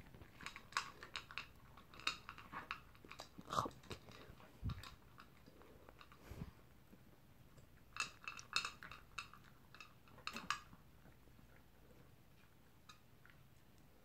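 Poodle eating its dinner from a plastic bowl: faint crunching and chewing in quick clusters of clicks, about a second in, near the middle and again two-thirds of the way through, with quiet gaps between.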